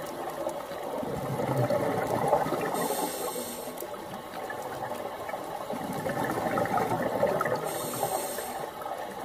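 Scuba breathing underwater through a regulator: a steady watery wash with two hissing breaths, about three seconds in and again near eight seconds.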